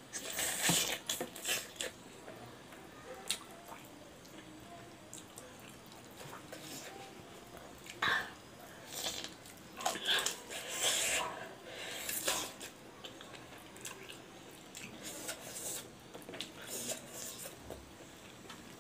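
Close-miked biting and chewing of pork trotter skin and meat: wet, irregular mouth sounds and clicks, heaviest near the start and again from about eight to twelve seconds in.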